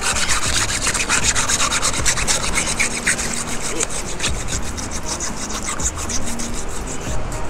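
Hacksaw sawing through a stingray carcass down the middle, with a continuous run of rapid back-and-forth rasping strokes.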